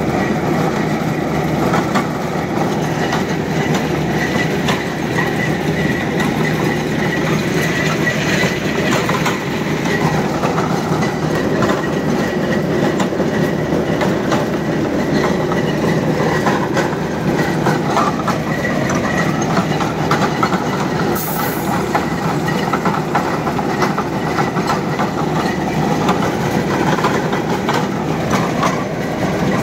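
Borewell drilling rig running steadily under load, its engine and turning drill string making a loud, continuous clattering rumble, with a brief high hiss about two-thirds of the way through.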